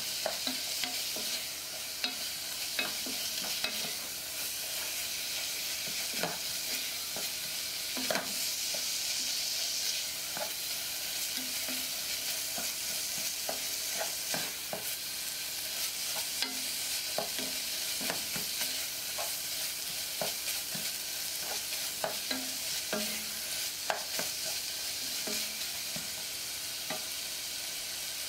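Beef, scallions and hot pepper flakes frying in a pot with a steady sizzle, while a wooden spoon stirs and scrapes them, knocking against the pot in short irregular taps.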